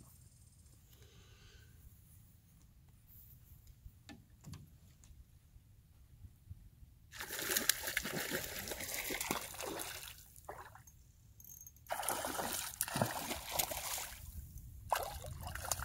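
Quiet for about seven seconds, then water splashing and sloshing in three spells as a hooked trout thrashes at the surface during the fight.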